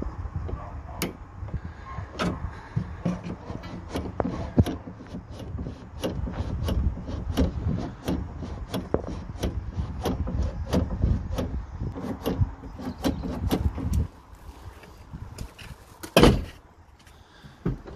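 Irregular small clicks and knocks of hands working the rods and latch inside a Mitsubishi L200 tailgate, over a low rumble. About sixteen seconds in comes one loud clack as the outside tailgate handle is pulled and the latch is worked.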